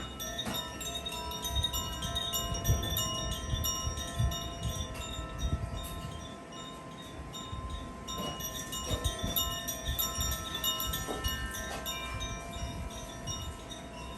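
Carillon chime being played: many clear metallic notes struck in quick clusters, ringing on and overlapping, with a low rumbling noise underneath.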